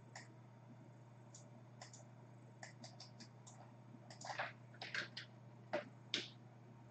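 Faint, scattered clicks of a computer mouse, with a few louder clicks about four to six seconds in, over a steady low electrical hum.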